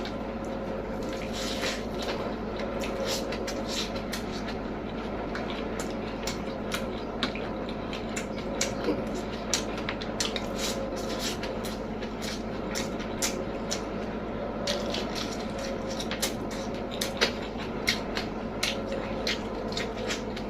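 Close-up eating sounds: chewing with many short, irregular wet clicks and smacks, over a steady background noise.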